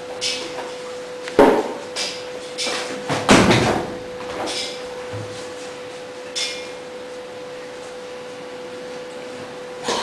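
Feet thudding and shuffling on a tiled floor during tai chi push-hands sparring, with sharp thumps about one and a half and three and a half seconds in, and another as one partner is sent stumbling near the end, under a steady thin hum.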